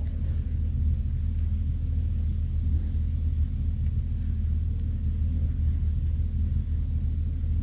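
Steady low background hum, an even rumble with nothing else standing out.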